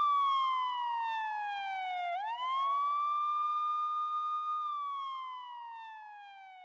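Police siren wailing: the pitch holds high, falls slowly over about two seconds, swoops quickly back up, holds, then falls again as the sound fades out near the end.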